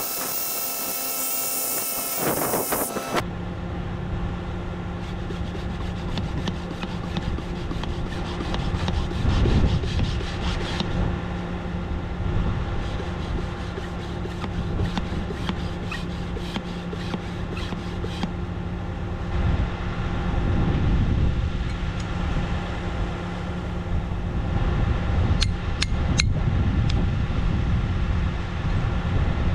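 A hammer drill boring into a concrete footer, stopping about three seconds in. After that an idling diesel engine, the Bobcat T66 track loader's, hums steadily, with scattered scraping and clicking from hand work at the footer and a few sharp taps near the end.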